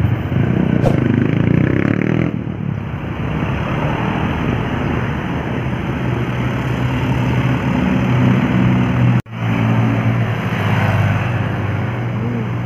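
Intercity buses' diesel engines running close by, a steady low drone that cuts out for a moment about nine seconds in.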